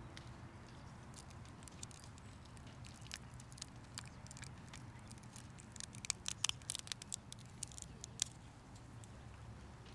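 Faint, crisp crackling and small clicks of communion bread being handled and prepared by hand close to a microphone. The crackles are thickest about six to seven seconds in, over a low, steady background rumble.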